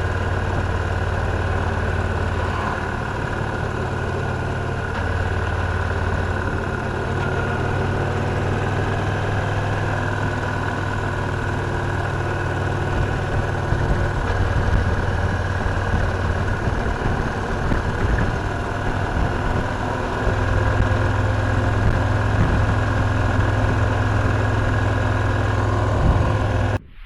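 Victory Cross Roads Classic LE's 1700 cc V-twin engine running steadily, with a strong low hum. The sound cuts off abruptly just before the end.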